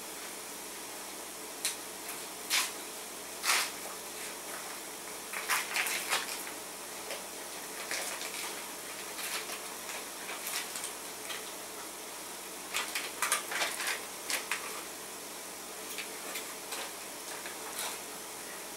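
Ground venison sizzling steadily in a skillet over a gas burner, with irregular sharp crinkles and rustles as a cream cheese wrapper is opened by hand.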